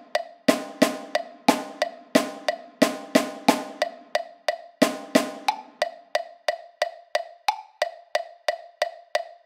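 Notation-software playback of a 6/8 rhythm-reading exercise: a steady metronome click about three times a second, with a drum sound on top playing the written rhythm of eighth and dotted-quarter notes. A little after six seconds in, the drum drops out and only the clicks continue, counting in the next exercise.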